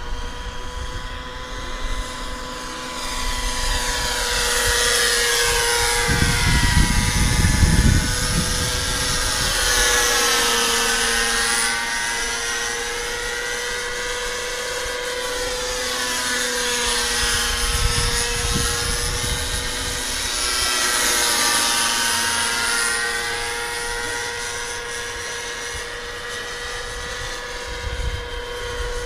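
Radio-controlled scale Bell 47G model helicopter flying overhead, its motor and rotor whine rising and falling in pitch as it passes back and forth. Wind buffets the microphone in gusts, most strongly about six to eight seconds in.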